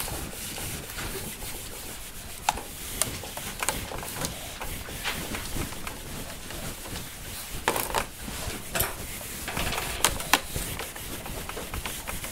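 Felt whiteboard eraser rubbing across a whiteboard, wiping off marker writing in repeated strokes, with a few short knocks along the way.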